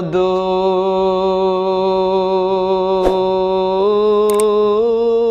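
A man's solo voice holds one long sung note of a Bengali Islamic devotional song (gojol), steady at first and then rising slightly about four seconds in.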